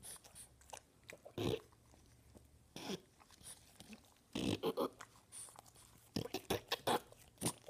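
French bulldog chewing and tearing at flower petals and stems: irregular crunching bites, with quick clusters about four seconds in and again over the last second and a half.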